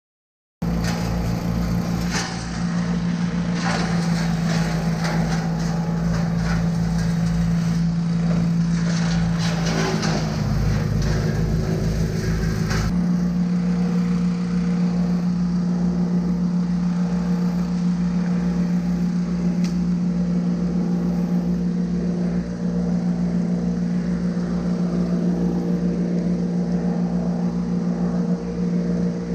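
An engine running steadily at constant high speed, starting abruptly about half a second in. For roughly the first dozen seconds a dense clatter of crackling and knocking rides over it.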